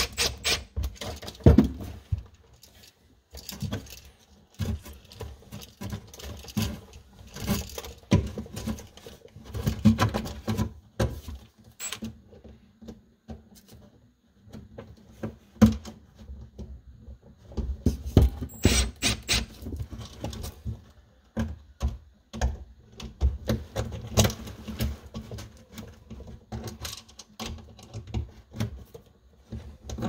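Hand-work at an electrical wall box: irregular clicks, taps and scrapes as a cordless drill/driver and receptacles are handled, with clothing rubbing close to the microphone.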